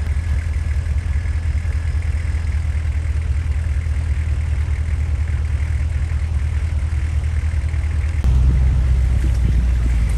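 Off-road 4x4 engine running steadily at low speed as it crawls through a shallow stream, getting louder about eight seconds in.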